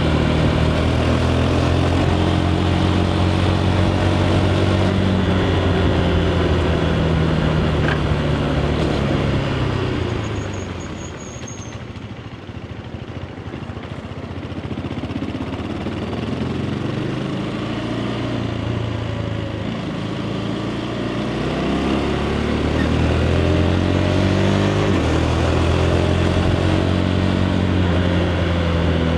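Single-cylinder engine of a KTM 390 Adventure riding on its stock exhaust, revs rising and falling through gear changes. About ten seconds in it backs off and goes quieter for a few seconds, then picks up and accelerates again.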